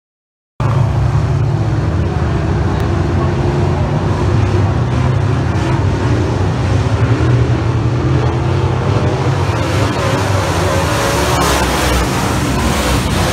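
Engines of several dirt-track race cars running around a dirt oval, a loud, steady engine noise that starts abruptly about half a second in.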